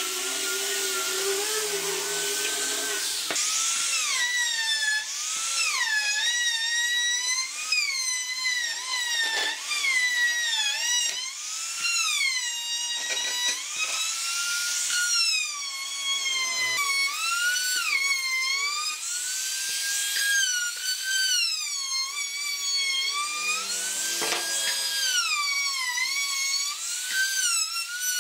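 A small angle grinder with a sanding disc sands a wooden chair part. After about three seconds a compact trim router takes over, running with a high whine whose pitch dips and recovers again and again as the bit cuts along the curved wooden edges.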